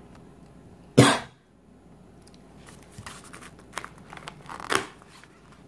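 A single cough about a second in, followed by light scratching of a coloured pencil on paper.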